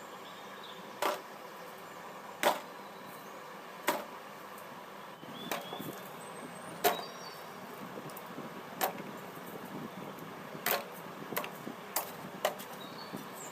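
Sharp knocks, as of strikes on a hard object: roughly one every second and a half, then coming quicker near the end. Faint high chirps sound in the background.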